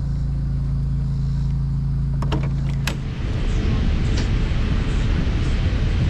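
A steady low machine hum, broken by two sharp clicks about two and a half and three seconds in, after which a rougher, slightly louder rumble takes over.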